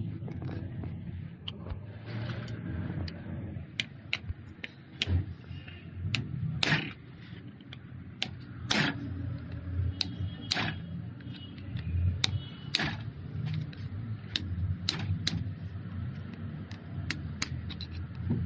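Irregular sharp clicks and knocks of hard objects, about one a second, a few of them louder, over a steady low hum.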